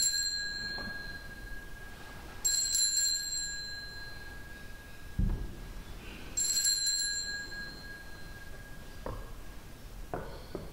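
Small altar bell (sanctus bell) struck three times, a few seconds apart, each strike ringing on and fading away: the bell rung at the elevation of the chalice after the words of institution. A few soft knocks come in the second half.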